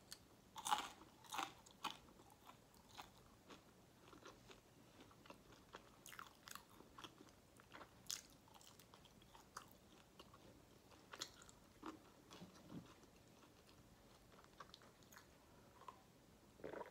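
Close-miked biting and chewing of fries: a few crunchy bites in the first two seconds, then quieter, scattered chewing and mouth sounds. Near the end there is a louder single sound as a drink is gulped.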